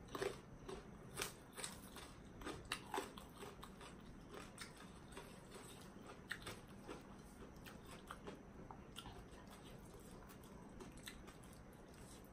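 A person chewing a mouthful of spicy papaya salad with rice noodles and raw salmon: a run of faint wet mouth clicks and bites, busiest in the first three seconds, then thinning out.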